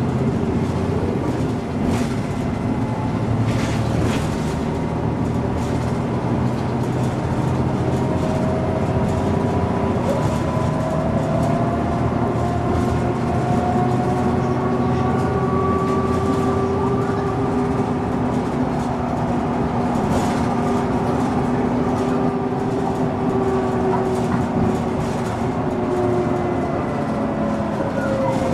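MAN NG 313 articulated city bus driving, its engine and drivetrain whine slowly rising in pitch and then falling again over many seconds, with scattered short rattles and knocks.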